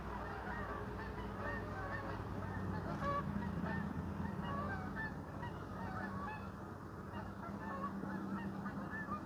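A flock of Canada geese honking, many short calls overlapping one another throughout.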